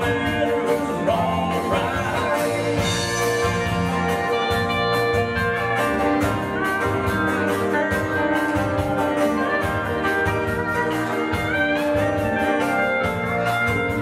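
Live country-rock band playing: electric and acoustic guitars, electric bass and a drum kit together, at a steady full level with a regular drum beat and bending guitar notes.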